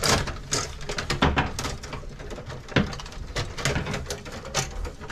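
Irregular clicks, scrapes and rustling as gloved hands pull and move old wires inside a metal breaker panel.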